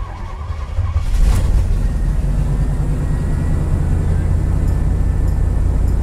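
The 1989 Chevy Lazy Daze motorhome's engine starting: it turns over and catches about a second in, then runs at a steady idle with a low rumble.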